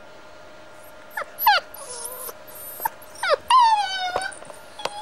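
Kelpie–border collie cross puppy whimpering: a few short squeals sliding down in pitch from about a second in, then one longer whine near the end.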